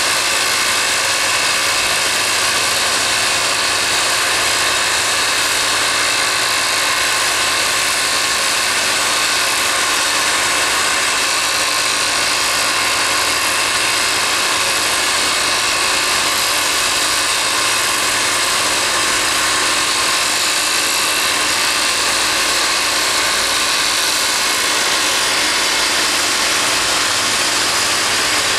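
Heavy earth-moving machinery, excavators and dump trucks, running together in a steady, unbroken mechanical drone with an even hiss over it.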